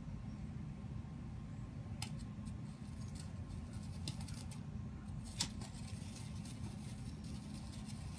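Faint scattered clicks and crackles over a low steady rumble while a lighter flame is held to a homemade smoke bomb mix of mace spice in a paper cup; the sharpest click comes about five and a half seconds in.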